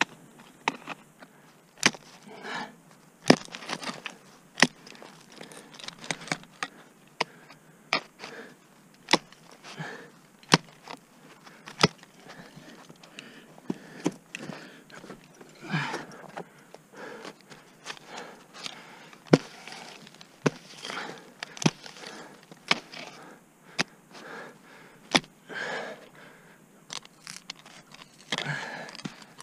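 Ice tool picks and crampon front points striking waterfall ice during a lead climb: sharp, irregular strikes at roughly one to two a second.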